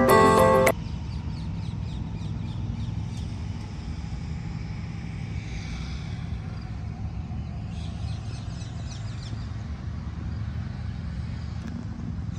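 Background music cuts off under a second in, leaving a steady low rumble of outdoor street ambience with distant road traffic.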